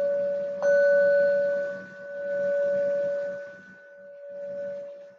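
A meditation bell ringing, struck about half a second in over the ringing of a strike just before. One clear ringing tone with fainter high overtones swells and fades in slow waves as it dies away.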